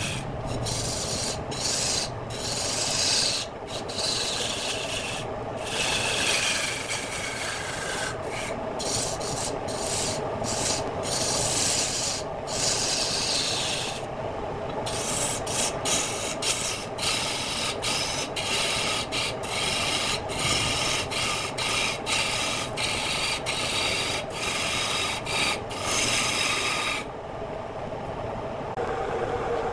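A wood lathe turning a workpiece while a hand tool cuts the spinning wood: a continuous scraping, rasping sound with faint gliding whistles. The cutting breaks off briefly many times, with a longer pause near the end.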